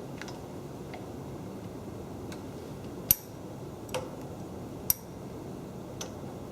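Sharp metallic clicks and clinks from metal parts being handled while a dial indicator is set up against a milling-machine vise. There are about seven irregular clicks, the two loudest with a brief bright ring, about three and five seconds in. A steady low hum runs underneath.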